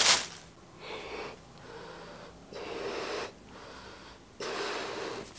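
A person blowing hard into a latex balloon: a sharp loud puff at the start, then about four long breathy blows with short pauses between, the balloon hardly inflating for the effort.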